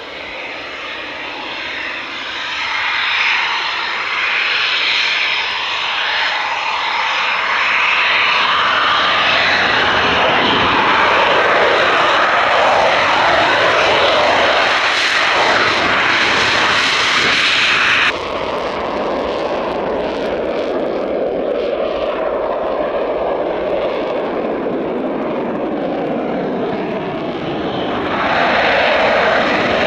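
Eurofighter Typhoon jet engines running loud, swelling to a peak, then dropping abruptly about eighteen seconds in to a lower steady rumble. The noise swells again near the end.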